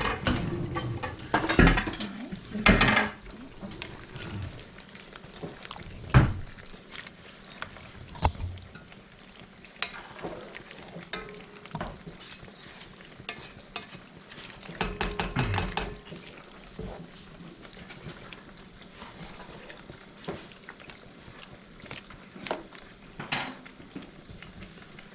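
Metal utensil stirring in a cooking pot and knocking against its side. It makes a few sharp clinks, the loudest about six seconds in, and a longer clattering stretch around fifteen seconds in.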